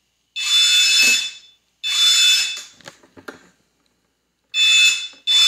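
Warning buzzer on a modified Elegoo robot car sounding in four short bursts, each under a second, as the robot drives forward. A few faint clicks come in the middle.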